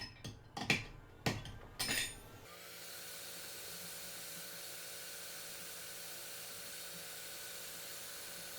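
A few sharp clicks and clinks of tools being handled on the bench, then from about two and a half seconds in a hot air rework station blowing with a steady hiss, heating the board to lift the south bridge chip.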